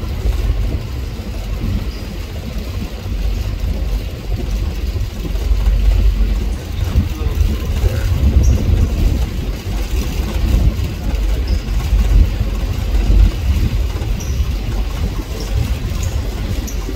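Low, uneven rumble aboard the Staten Island Ferry under way, with no distinct events.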